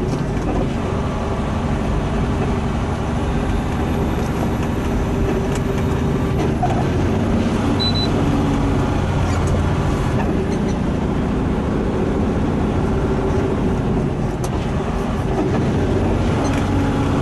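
Semi-truck's diesel engine running steadily with road and tyre noise, heard inside the cab.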